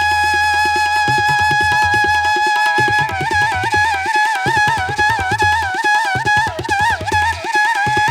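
Background music: a melody held on one long note, then moving in quick wavering ornaments from about three seconds in, over a steady drum beat and a low drone.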